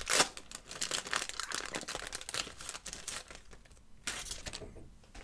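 Crinkling and tearing of a 1990/91 Pro Set card-pack wrapper being pulled open by hand and the cards slid out. It is a dense run of crackles that thins out after about three seconds.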